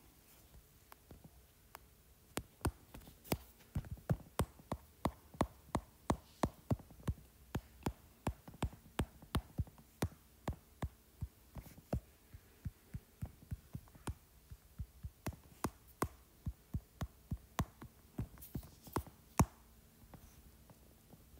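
Stylus tip tapping on a tablet's glass screen during quick brush strokes: sharp light clicks about three a second, in an uneven rhythm.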